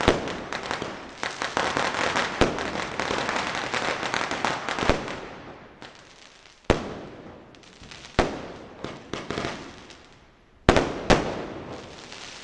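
Diwali firecrackers going off: a dense run of rapid bangs and crackling that dies away after about five seconds. Then single sharp bangs come about seven and eight seconds in, and two close together near the end, each trailing off in crackle.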